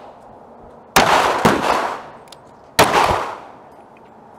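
Glock 43 9mm pistol firing two shots of 147-grain +P hard-cast lead, about two seconds apart. Each sharp report is followed by about a second of echo dying away.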